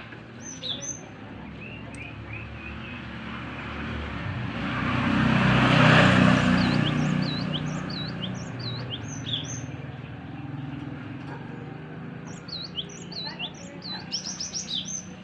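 A young gelatik bird calling in short, high chirps, in clusters at the start, in the middle and near the end. A vehicle passes about halfway through, rising and fading, and is the loudest sound.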